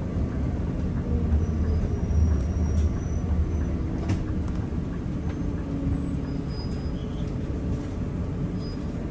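Steady low rumble of a moving coach's engine and tyres heard from inside the passenger cabin, with one faint click about four seconds in.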